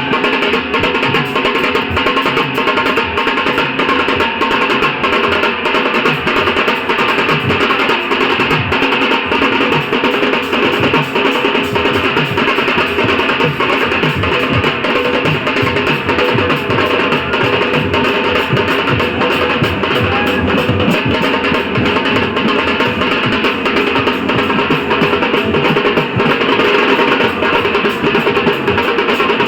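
Dhol-tasha drumming: barrel drums and tasha snare drums playing a dense, steady beat.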